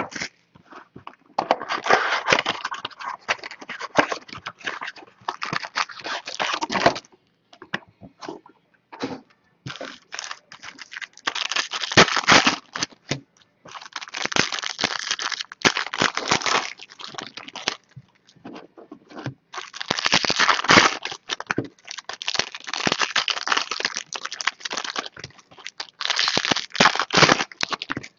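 Foil trading-card pack wrappers being torn open and crinkled by hand: irregular bursts of crackling and crinkling with short pauses between.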